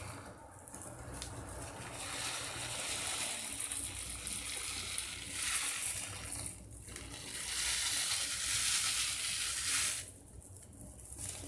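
Fine sand pouring from a gloved hand into a glass bowl terrarium, a steady hiss that grows stronger about five seconds in, breaks briefly near seven seconds, and stops about ten seconds in.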